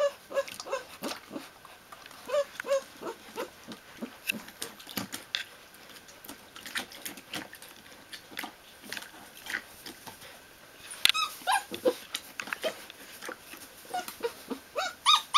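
Almost five-week-old Newfoundland puppies whining and squeaking in short, high calls as they tussle. A quicker run of higher yelps comes about eleven seconds in, and short clicks and scrapes are scattered throughout.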